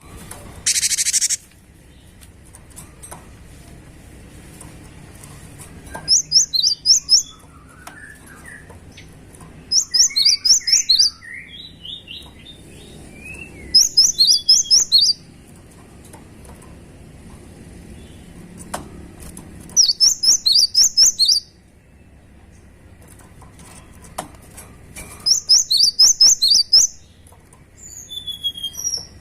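Cinereous tit (gelatik batu) singing in loud bursts of rapid, repeated high whistled notes, about five phrases a few seconds apart, with softer, lower chirps between them. A short hiss sounds about a second in.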